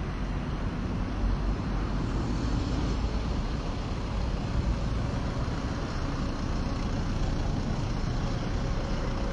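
Steady street traffic noise: a continuous rumble of passing cars with no single vehicle standing out.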